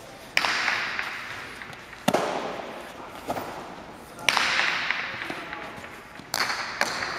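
Jai alai pelota smacking off the court's walls and floor during a rally: about six sharp cracks, each ringing out in a long echo through the large hall.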